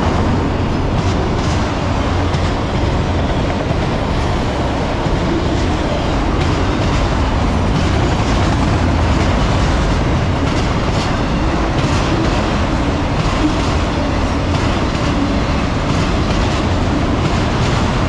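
A freight train's autorack cars rolling past: a steady loud rumble of steel wheels on rail with a clickety-clack of wheels over the rail joints.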